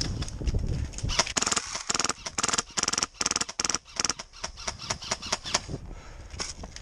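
HPA-powered airsoft RPK replica firing rapid snapping shots in bursts with short pauses, laying down suppressing fire until a magazine is emptied.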